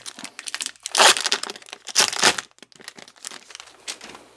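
Foil wrapper of a baseball card pack crinkling as it is opened by hand, with loud crackling bursts about one and two seconds in, then softer rustling.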